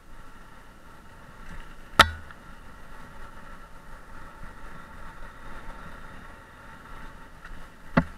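Mountain bike rolling fast down a dirt forest trail, heard from a helmet-mounted camera: steady tyre, trail and wind noise with two sharp knocks, about two seconds in and near the end, as the bike and camera jolt over bumps.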